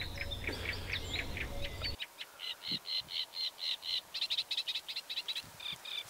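Great reed warbler singing a raw, loud song of repeated harsh, grating notes, about three to four a second. The song grows stronger from about two seconds in. A faint low rumble under the first two seconds then stops.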